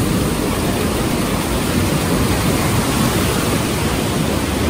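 Steady, even rush of surf washing up onto a sandy shore.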